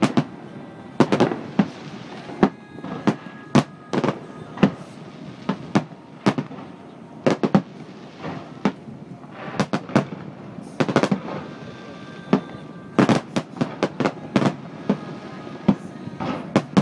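Aerial fireworks shells bursting overhead: dozens of sharp bangs at an uneven pace, some coming in quick clusters.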